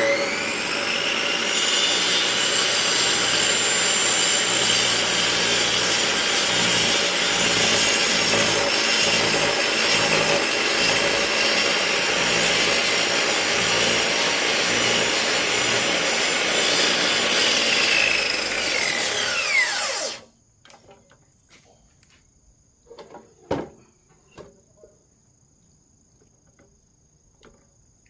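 Electric cut-off saw running and sawing through a log: the blade's whine rises as it spins up, holds steady for about twenty seconds of cutting, then falls away and stops abruptly. A few light knocks follow.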